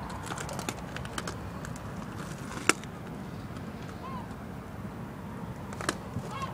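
Steady outdoor background noise with a few sharp clicks from the phone being handled close to the tyre, the loudest about two and a half seconds in. A faint short chirp comes near four seconds.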